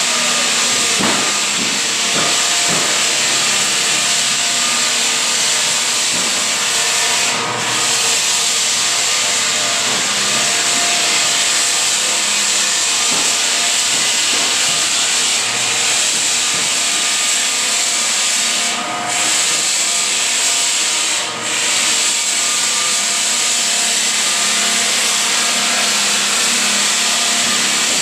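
Lägler Hummel drum floor sander running across a wood floor, with its dust-extraction system attached: a loud, steady hiss, briefly dipping three times.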